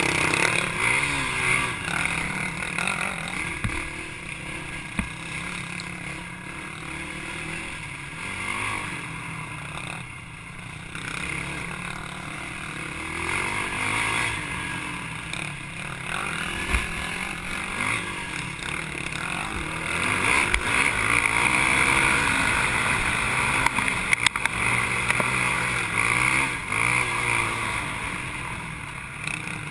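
Racing quad bike engine heard up close from the bike itself, revving up and down as the rider works the throttle over rough ground. A few short sharp knocks stand out along the way.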